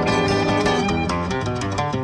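Music: a guitar-led instrumental track with quick plucked notes.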